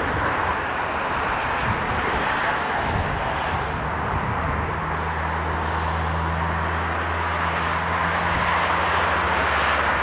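Boeing 777-300ER's GE90 turbofan engines on final approach to landing: a steady jet roar that grows a little louder toward the end, with a low steady hum joining for several seconds in the middle.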